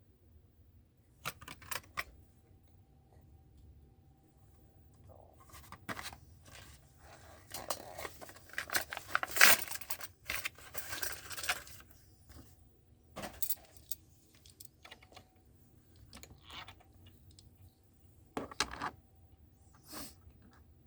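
Hot Wheels blister card being opened by hand: the plastic blister and cardboard crinkle, tear and click in scattered bursts, busiest in the middle.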